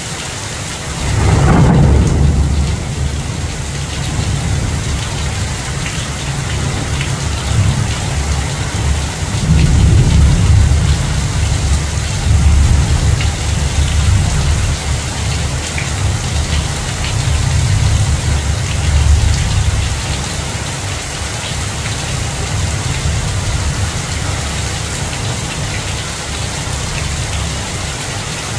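Heavy downpour hissing steadily through tree leaves. About a second in, a thunderclap cracks and rolls into a long low rumble that swells again several times before dying away about two-thirds of the way through.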